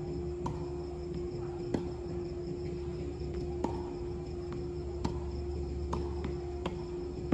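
Tennis rally: sharp pops of racket strikes and ball bounces about once a second, six or seven in all, over a steady hum and a constant high insect trill such as crickets.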